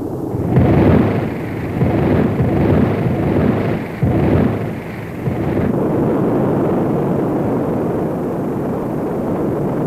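Rumbling roar of a rocket engine under thrust. It swells a few times in the first five seconds, then holds steady.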